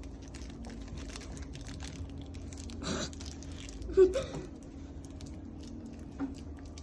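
Sticky tape being pulled off the roll, torn and pressed on, with scattered small clicks and rustles and a short, sharp louder sound about four seconds in.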